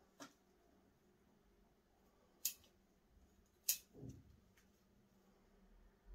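Bonsai scissors snipping white spruce shoots: a faint snip at the start, then two sharp snips about a second apart, the last followed by a brief rustle of foliage.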